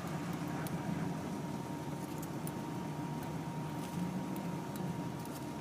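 Faint, sparse metallic ticks of lock picks working inside a vintage brass V7 245 padlock, over a steady background rumble and a faint steady tone.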